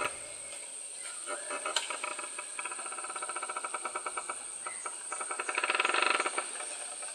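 Forest insects calling: a steady high-pitched trill throughout, and a fast pulsing chirr that starts about a second in, grows louder to a peak near six seconds, then fades.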